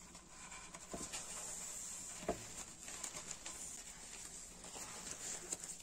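Faint handling noise from hands working fiberglass cloth and tape on a foam glider wing: light rustling with scattered small clicks and a couple of soft knocks, one about a second in and one just after two seconds.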